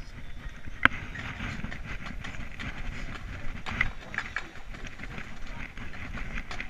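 Handling noise from a camera clipped to a trumpet held at rest: rumbling and rubbing with many small clicks and one sharp knock about a second in, over a steady background hubbub.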